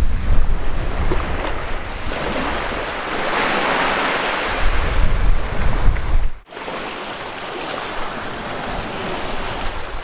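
Small waves breaking and washing up the shore, with wind buffeting the microphone in a low rumble. The sound breaks off sharply about six seconds in, and the wind rumble is gone after that, leaving the hiss of the surf.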